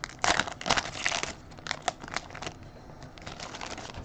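Baseball trading cards being handled and flipped through, with quick crinkling and rustling for about two and a half seconds, then only faint handling.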